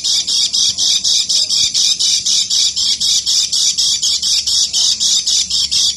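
Caged white-eye (kecial kuning) singing its rapid, high-pitched chattering 'ngeker' song, a steady stream of about six or seven sharp notes a second without a break.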